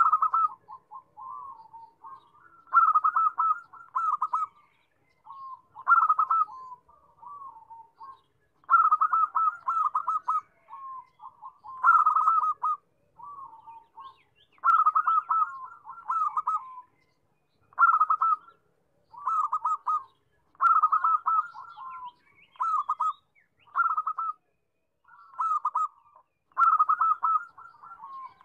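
Zebra dove (perkutut) cooing: repeated phrases of rapid staccato coos, each about a second long with short pauses between, louder phrases alternating with softer, lower ones.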